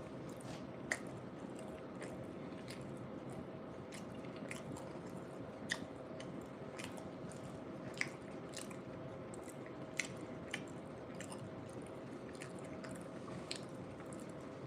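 Close-miked chewing of a bean burrito: wet mouth sounds with a few sharp smacks or clicks spread through.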